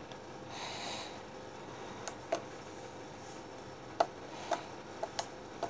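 Pink bubblegum slime being handled by fingers on a table, giving faint, irregular little clicks and pops, with a brief soft hiss about half a second in.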